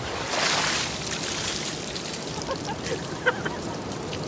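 Seawater pouring out of a pair of flooded chest waders held upside down and splattering onto wet sand: a gush about half a second in, then a steady splashing stream.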